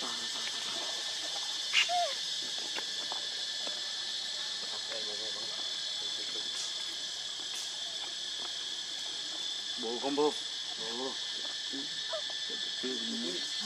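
A steady chorus of insects, high-pitched and unbroken. A few short, wavering vocal sounds stand out over it, the loudest about ten seconds in and another near the end.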